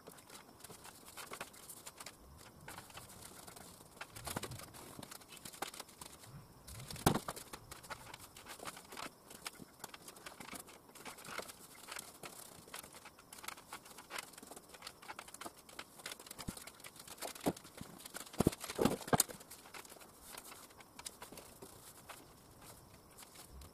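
Paintbrush scraping and dabbing against a corrugated steel container ceiling, irregular brushing strokes and small knocks, with a couple of louder knocks about seven seconds in and near nineteen seconds.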